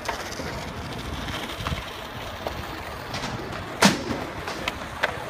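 Skateboard wheels rolling on concrete and asphalt, with a few sharp clacks of the board, the loudest about four seconds in.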